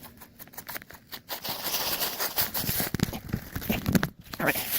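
Rustling and scraping with many small crackling clicks as a pumpkin is pushed and wedged between two tree trunks. The noise starts about a second and a half in and carries on to near the end.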